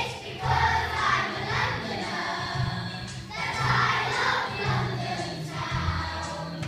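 A group of young children singing a song together in unison.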